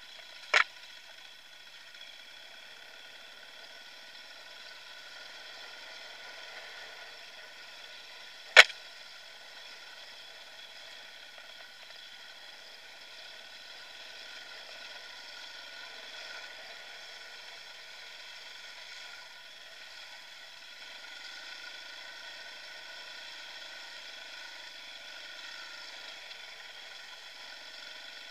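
Dirt bike engine running steadily, heard muffled and thin from the rider's camera. Two sharp clicks stand out, one about half a second in and a louder one about eight and a half seconds in.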